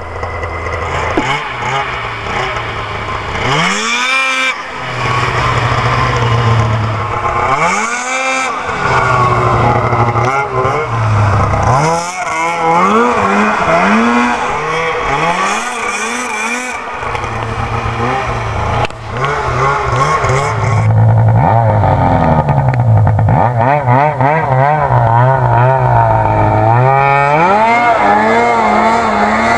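Polaris two-stroke snowmobile engine revving hard and easing off over and over as the sled carves turns in the snow, its pitch sweeping up and falling back each time.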